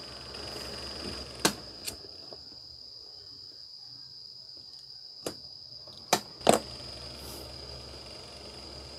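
A disposable lighter clicking and being handled while heat-shrink tubing is shrunk over a soldered wire joint: a few sharp clicks and taps, two about a second and a half in and a group around six seconds in, the last the loudest. A steady thin high-pitched tone sounds underneath.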